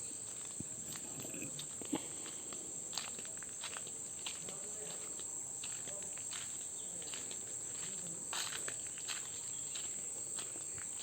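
Insects shrilling in one steady high-pitched drone, with scattered short clicks and crunches like footsteps on dry ground.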